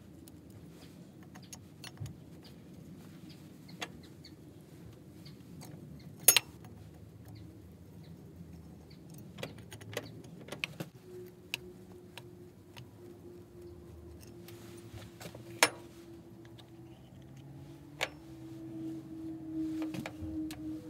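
Scattered metallic clicks, taps and knocks as a T-handle wrench undoes the screws of a small lathe saddle's gear sump cover and the cast cover is handled and lifted off. A faint steady tone comes in about halfway and grows louder near the end.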